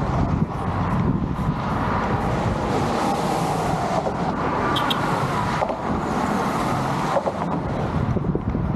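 Steady road traffic noise, with wind buffeting the microphone.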